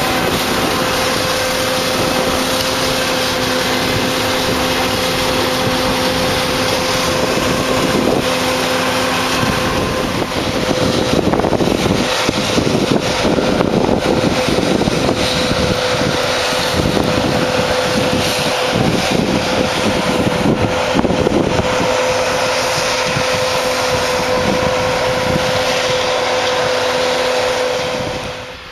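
Combine harvester running steadily while harvesting soybeans: a constant machine hum with a steady whine.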